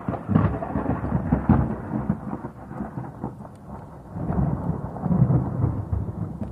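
Thunder rolling in a long, uneven rumble that eases off midway, swells again about four seconds in, and dies back near the end.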